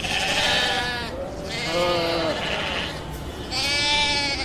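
Sheep bleating: three calls in a row, the middle one lower in pitch.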